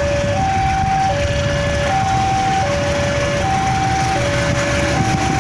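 Railway level-crossing warning alarm sounding two alternating tones, high then low, each held about three-quarters of a second, repeating steadily. The low rumble of the approaching diesel train runs underneath.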